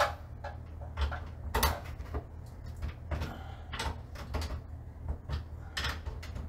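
Irregular clicks, taps and knocks of hands working a small plastic breaker enclosure and its wiring, over a steady low hum.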